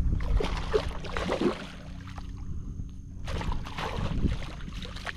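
Water splashing in uneven bursts as a hooked redfish thrashes at the surface beside the boat while it is being landed.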